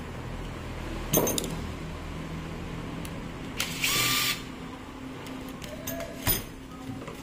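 Cordless impact driver run in one short burst of under a second on a small screw in an angle grinder's switch assembly, its motor whining. Sharp knocks of tools and parts being handled come before and after it.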